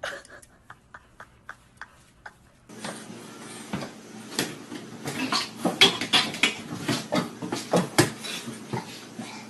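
A run of faint, evenly spaced clicks, then from about three seconds in a plastic cat flap clattering and knocking irregularly as a cat pushes and squeezes through it, with several sharp knocks.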